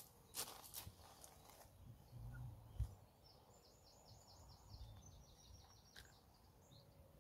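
Faint rod-and-tackle handling on a gravel fishing peg: a few sharp clicks, then a dull thump as the angler crouches at his rod pod. A small bird's quick, high trill follows in the background.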